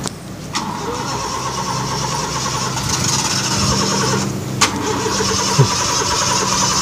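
A stalled car's engine being cranked by its starter motor without catching, with a short break and a click about four and a half seconds in before the cranking resumes.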